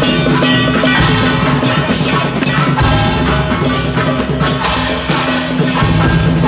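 Loud music with drums and other percussion over sustained held notes.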